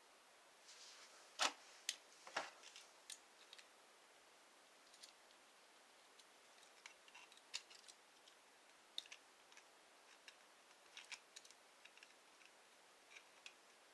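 Scattered light clicks and taps of small hard plastic parts being handled, with two louder knocks about a second and a half and two and a half seconds in, over near silence.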